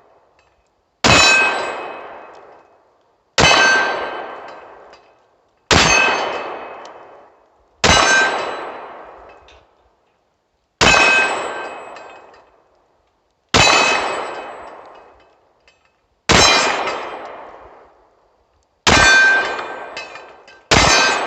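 A SCCY DVG-1 9mm pistol fired nine times at an unhurried pace, about one shot every two to three seconds, the gun cycling without a stoppage. Each shot is a sharp crack followed by a long ringing clang of metal that fades over about two seconds.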